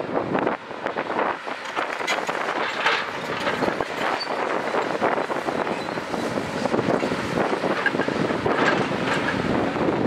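JCB tracked excavator's diesel engine running under load as it swings and lowers its boom, with scattered clanks and knocks, and wind buffeting the microphone.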